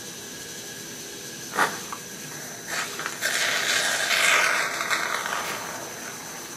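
Suction catheter in a tracheostomy tube drawing up airway secretions: a loud wet hiss that starts about three seconds in and lasts about two and a half seconds. It is preceded by a brief sharp sound about a second and a half in.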